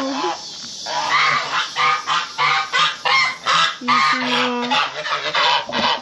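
Domestic geese honking: after a short lull, a rapid run of loud honks, several a second, with one longer, lower honk near the middle.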